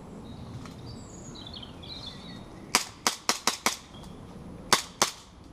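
Airsoft gun firing seven sharp shots: a quick string of five, then two more about a second later. Birds chirp faintly before the shots.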